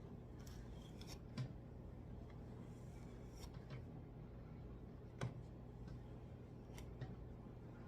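Faint handling sounds: scattered light clicks and rustles, a few sharper ones about a second and a half, five seconds and seven seconds in, over a low steady hum.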